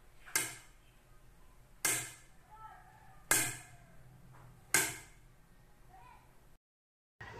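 A stick tapping the seat of a wooden chair: four sharp taps about a second and a half apart, the later ones louder.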